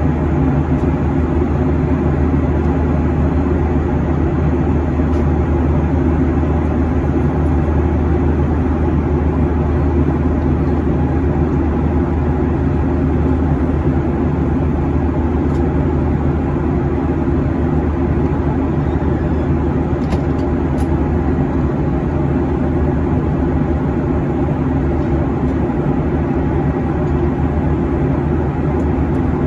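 Steady cabin drone inside a Boeing 737-800 in flight: the low hum of its CFM56-7B turbofan engines mixed with airflow rush over the fuselage, unchanging throughout.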